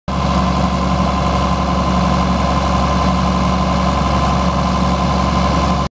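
John Deere tractor's diesel engine running steadily while it pulls a boom sprayer, with a steady high whine over the engine.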